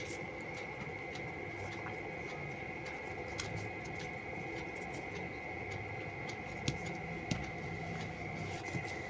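Foil-backed origami paper crinkling and rustling as it is folded and pressed flat by hand, with two sharper taps about two-thirds of the way through. A steady high-pitched whine and hum run underneath.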